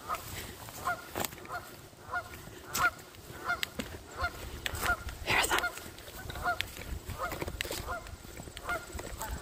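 Flock of Canada geese honking, a steady run of short calls about two a second, with wind rumbling on the microphone.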